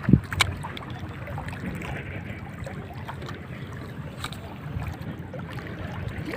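Steady low wind and water noise, with a dull knock right at the start and a sharp click about half a second in.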